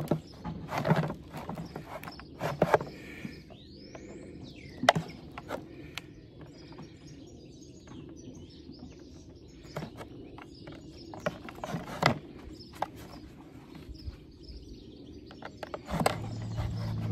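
A knife blade cutting and prying at the plastic seal of a chlorine-tablet tub, making scattered sharp clicks and scrapes, with birds chirping. Near the end a steady low drone of aircraft engines comes in.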